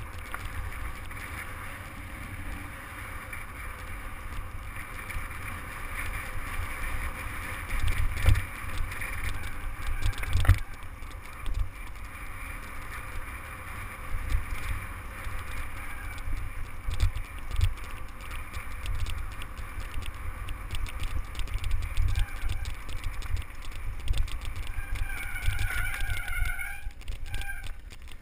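Mountain bike descending a loose gravel road: tyres crunching and the bike rattling over stones, with heavy wind rumble on the microphone. A brief wavering squeal comes near the end.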